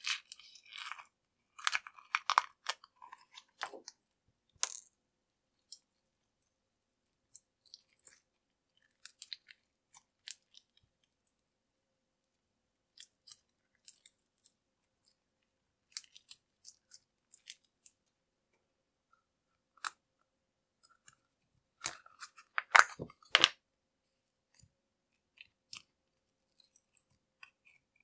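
Slime being squeezed and poked by hand: scattered sticky crackles and clicks. There is a dense run of crackling in the first few seconds and a louder cluster about 22 seconds in.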